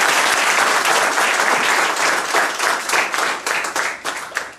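A small audience applauding, many hands clapping together; the clapping thins into a few separate claps near the end and stops.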